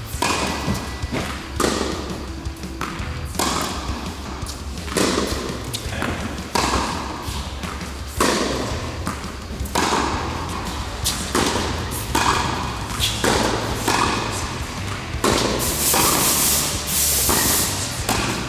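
Tennis rally: racquets striking a tennis ball back and forth, a sharp hit about every second and a half, echoing around an indoor court.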